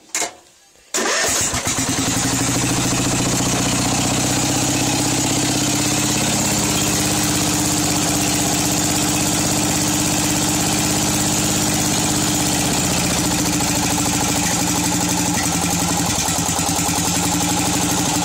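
Craftsman 13.5 hp small engine starting about a second in, then running at a steady idle. The fuel mixture screw has been opened half a turn, and the engine has been burning oil and idling poorly.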